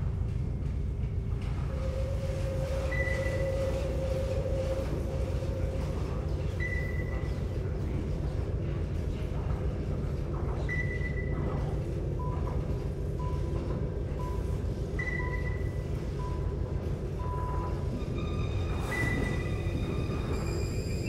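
Ambient soundtrack: a steady low rumble with short high pings about every four seconds, a run of short beeps in the middle and several held high tones layered in near the end.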